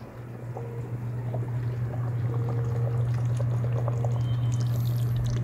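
Water pouring steadily into a pot, with a steady low hum beneath it and a few light clinks. It grows louder over the first couple of seconds.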